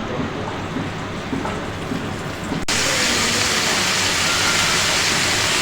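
Spice paste of ginger-garlic, turmeric and chili frying in hot oil with a splash of water: a low sizzle with faint crackles, then from an abrupt cut about two and a half seconds in, a much louder steady sizzling hiss.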